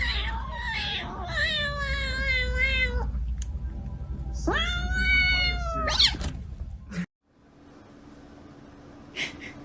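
Cat giving two long, drawn-out meows, the first wavering and falling, the second rising and then held. About seven seconds in the sound cuts off abruptly and a much quieter stretch follows.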